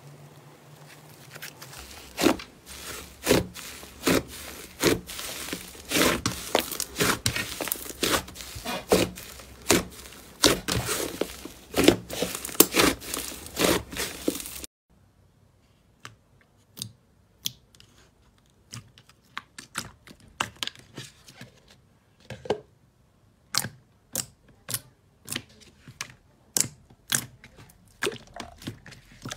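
Slime being squeezed and pressed by hand, giving dense crackling and popping for the first half. After a cut about halfway, sparser sharp clicks and pops follow.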